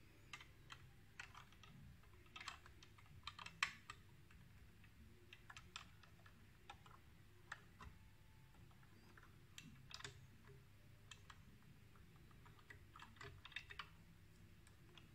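Faint, irregular small clicks and taps of a GX-40R Godmars toy robot figure's parts knocking together as it is handled and posed, with a few louder clicks in the first few seconds.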